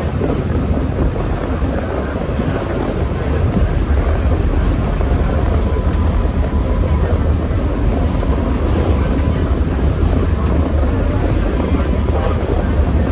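Streetcar under way, heard from aboard: a steady low rumble of the wheels on the rails and the running gear, with a faint steady whine through the middle of it.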